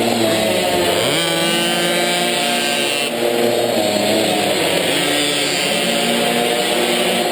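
Minimoto's small two-stroke engine racing at high revs, the pitch climbing and falling as the throttle is opened and eased through the corners: it climbs about a second in, drops briefly around three seconds, climbs again, and eases near five seconds before rising once more.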